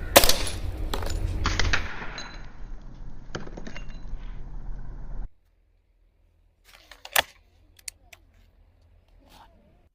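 Snowpeak GR800S gas-piston air rifle firing: a sharp shot right at the start, then another sharp crack about a second and a half in. A few faint clicks follow later.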